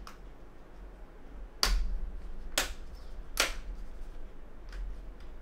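Plastic display bezel clips of a Lenovo Y50 laptop snapping loose as the frame is pried off with a plastic pick: three sharp taps about a second apart, then a couple of fainter clicks near the end.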